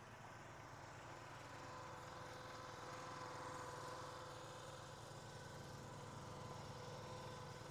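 Engines running steadily with an even hum: a Huskee 22-ton log splitter's engine and a Kubota B2301 compact tractor.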